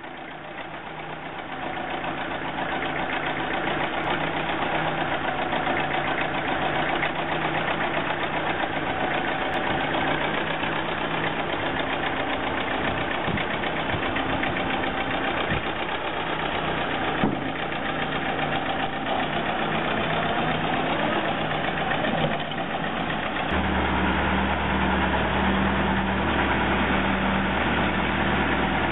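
Old tractor engine running steadily as the tractor is driven down off a trailer, with a run of clunks partway through. About 23 seconds in, the engine note turns deeper and steadier.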